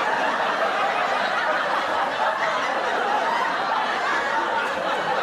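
Audience laughing and chuckling, a steady crowd laugh without a break.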